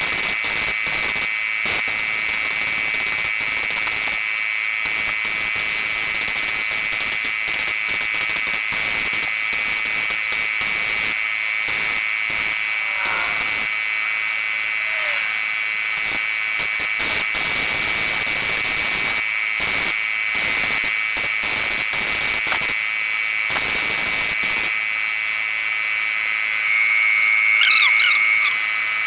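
Paint sprayer running and spraying, a steady high-pitched motor whine with hiss, broken by brief pauses of the trigger.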